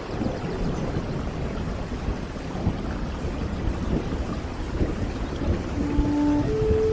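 Rain falling with a low, continuous rumble of thunder. About six seconds in, soft held music notes begin over the storm.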